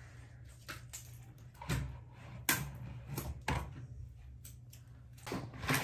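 Hands handling and peeling small plastic packaging: scattered light clicks and taps, about eight at irregular intervals.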